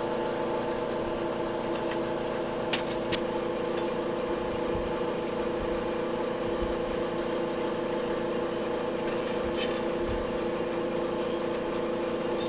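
Small engine running steadily at an even speed, a constant hum with a couple of faint clicks about three seconds in.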